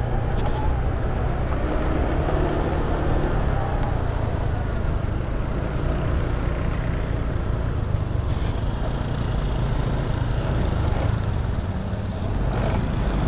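Motor scooter riding along at steady speed, its engine running under heavy wind rumble on the helmet-mounted microphone.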